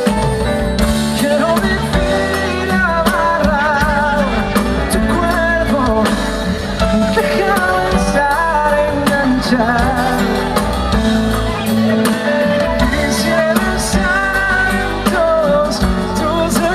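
A live band playing a song, with a wavering melodic vocal line over bass and accompaniment.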